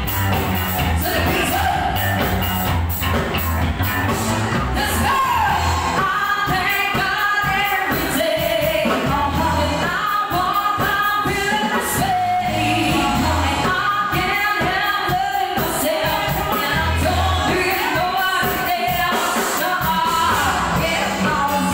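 Live band playing a pop song: singers on microphones over electric guitars, bass and a drum kit keeping a steady beat.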